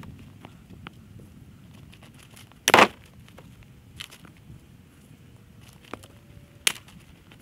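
Firewood being split with an axe: a loud woody knock a little under three seconds in, then a sharp axe strike into a round near the end, with lighter clicks and knocks of wood between.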